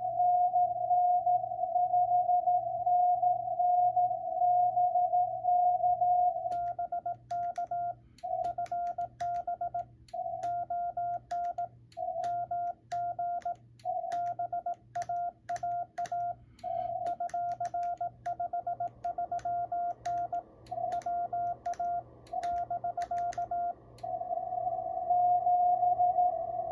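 Morse code (CW) tones at about 700 Hz from a Yaesu FT-950 HF transceiver on the 20 m band. A loud, fast run of keying gives way at about six seconds to a somewhat quieter keyed signal with sharp clicks, and the loud keying returns near the end.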